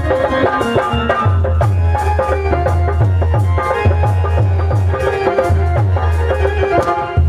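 Live stage dance music: an electronic keyboard melody over a steady heavy drum beat, about two to three beats a second, with hand-drum strokes.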